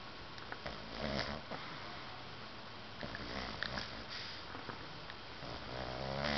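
A sleeping pet snoring: two louder rasping snores, about a second in and near the end, with a softer breath between them.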